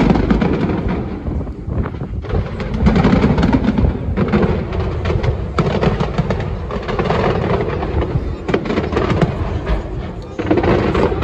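Aerial fireworks shells bursting many at a time: dense, overlapping bangs and crackling with no break.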